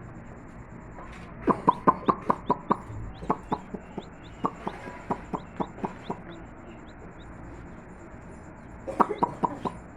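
Chicken clucking in quick runs of short clucks, about five a second, three runs in the first six seconds and a last short run near the end.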